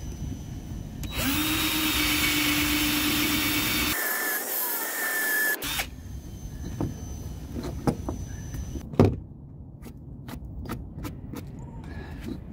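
Cordless drill running for about four and a half seconds, boring through a sailboat's fiberglass deck via the stanchion base's mounting hole, with a steady motor whine that shifts in pitch near the end of the cut. Afterwards a few sharp knocks and clicks as the drill and hardware are handled, the loudest about nine seconds in.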